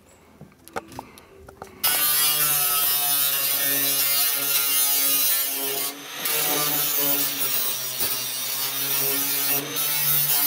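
Corded electric grinder starting about two seconds in and running steadily as it grinds the edge of a cut-out in a steel car hood, with a brief dip near the middle as the tool eases off the metal.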